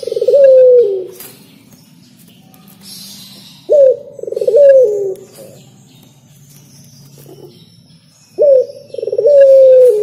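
Collared dove (derkuku) cooing: a repeated two-part coo about every four seconds, each a short note followed by a longer rolled note that falls in pitch.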